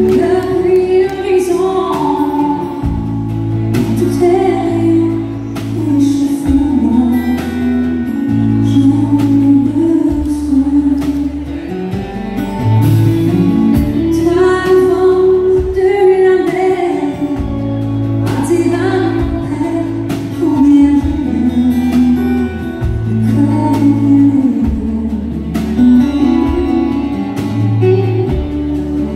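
Live country band playing a song with a woman singing lead into a microphone, backed by electric and acoustic guitars and drums, heard through the stage sound system.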